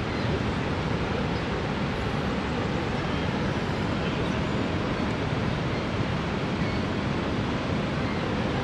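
Steady rushing roar of Niagara's American Falls, with wind buffeting the microphone.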